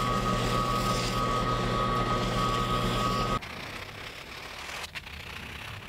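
Benchtop drill press running with sandpaper held against a wooden drill handle spinning in its chuck: a steady motor hum under a hiss of sanding. It cuts off suddenly about three and a half seconds in, leaving a much quieter background.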